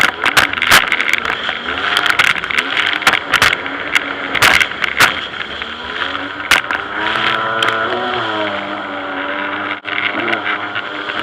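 Jet ski engine running, its pitch rising and falling as the throttle changes, with frequent short, sharp bursts of noise over it.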